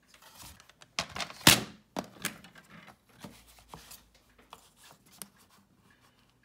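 Cardstock and a paper trimmer being handled as the card is slid into position for trimming: paper scraping and rustling with several sharp knocks, the loudest about a second and a half in.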